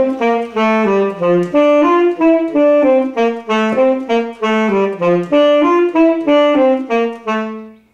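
Tenor saxophone playing a quick unaccompanied run of separate notes, a slow play-through of a technical passage with its slurs and staccatos, ending on a held low note that stops just before the end.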